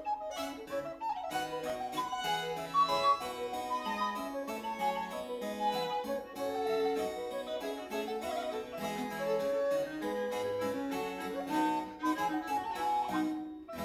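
Instrumental background music: a quick run of many short plucked-sounding notes over lower held notes.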